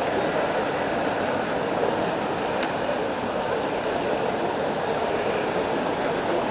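Steady street ambience: a constant wash of distant voices and city noise, with a couple of faint clicks.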